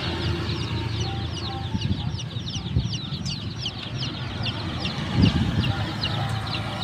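Many chicks peeping together: a steady stream of short, high, falling chirps. Underneath is a low rumble of wind on the microphone, and there is a louder thump about five seconds in.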